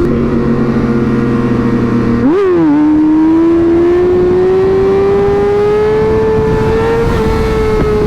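Sport motorcycle engine running at highway speed under a constant rush of noise; a little over two seconds in the revs flick up and fall in a quick gear change, then climb steadily as the bike accelerates.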